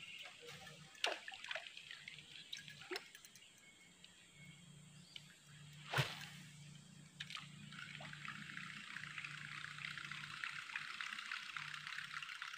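Casting a surface lure with a baitcasting rod and reel: a few light clicks, a sharp smack about six seconds in, then the lure reeled back across the water, a steady churning splutter of water that grows slightly louder toward the end.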